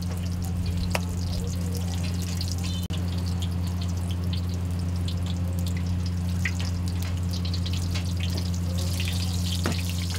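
Bhatura dough deep-frying in a large kadai of hot oil: a continuous crackling sizzle with scattered pops, over a steady low hum.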